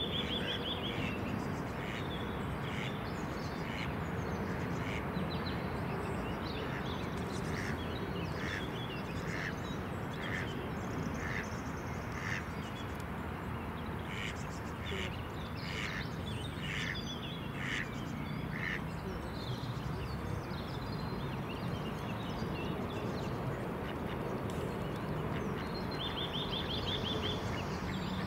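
Ducks quacking in a repeated series of short calls, about one a second, over a steady rush of outdoor background noise. A brief rapid trill of a small bird comes near the start and again near the end.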